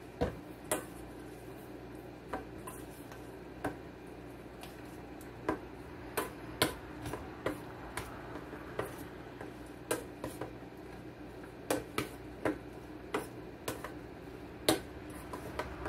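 Spoon clinking and scraping against a stainless steel bowl while tuna salad is stirred, in irregular sharp clicks about once or twice a second.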